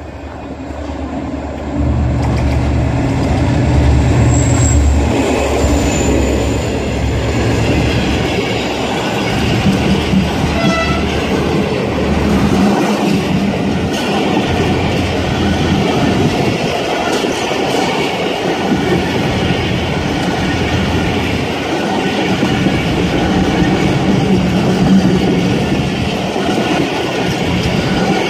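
A passenger train passes close by: its diesel locomotive runs past with a loud rise in sound about two seconds in, followed by a long string of coaches running steadily over the rails.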